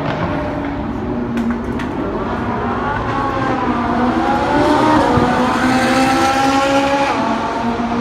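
Supercar engine running, its pitch dipping and then climbing about halfway through as it accelerates, then holding high. A few sharp clicks about a second and a half in.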